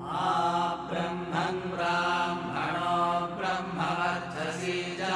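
Mantra-style chanting: a voice intoning short, sustained phrases over a steady low drone.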